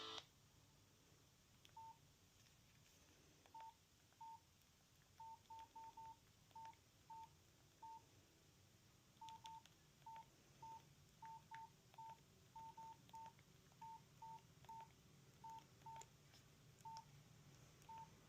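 Nokia C2-01 keypad tones: about two dozen faint, short beeps, all at the same pitch, coming in an irregular rhythm with some quick runs, as the phone's keys are pressed one at a time.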